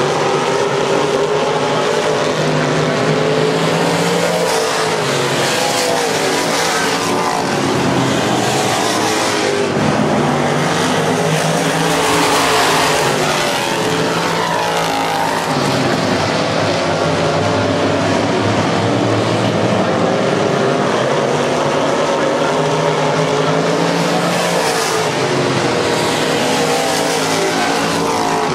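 Several dirt-track stock car engines at racing speed, their pitch rising and falling over and over as the cars accelerate down the straights and lift for the turns.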